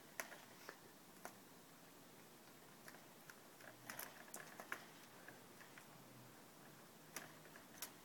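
Near silence with faint, scattered light clicks and ticks: a small cluster about four seconds in and two more near the end.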